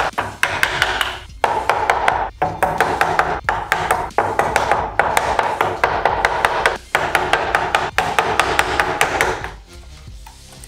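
Small wooden mallet tapping lightly and repeatedly on a block of clear ice to split it along the shock wave, several quick taps a second, over background music; the tapping stops near the end.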